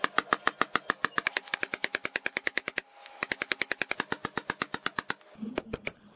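Hammer rapidly striking a lead fishing sinker on a small steel bench anvil, about seven or eight blows a second, flattening the pyramid-shaped weight into a disc. The hammering breaks off briefly near the middle, runs on again, and ends with a few separate taps.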